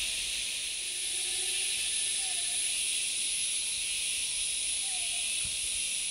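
Steady, high-pitched drone of a tropical rainforest insect chorus, with a few faint, short wavering tones now and then.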